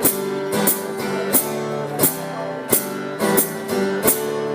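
Acoustic guitar strummed in a steady rhythm, about three strums every two seconds, the chords ringing on between strokes, with no singing.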